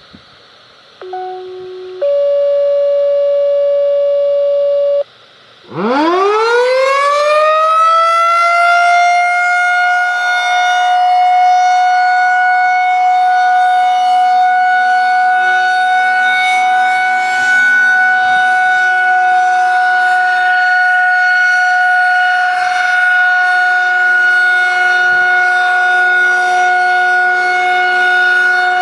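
Two steady electronic tones sound first, a short one and then a longer one of about three seconds. A Federal 2001-130 electromechanical outdoor warning siren then winds up, rising steeply in pitch over about three seconds, and settles into a loud, steady wail at the start of a siren test.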